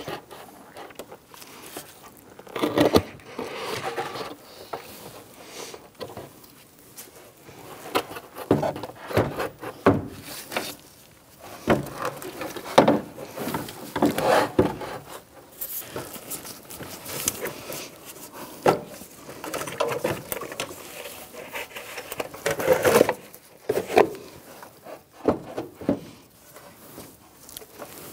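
Radiator, with its aluminium core and plastic end tanks, being worked down into its mounting: irregular knocks, clicks and scrapes as it rubs and bumps against the surrounding plastic parts and the AC condenser.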